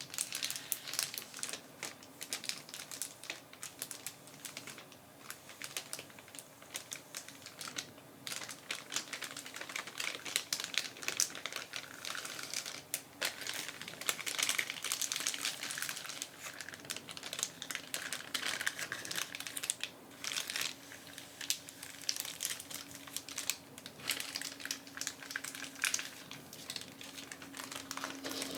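Shiny silver foil package crinkling as hands handle it slowly, a dense run of fine crackles with no pause.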